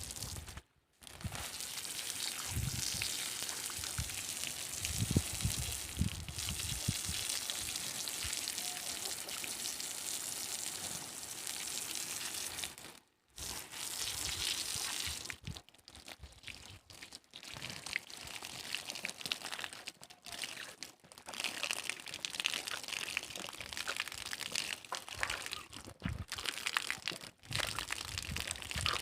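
Water splashing and running over a cow as it is washed: a steady rushing hiss, cut off abruptly a few times.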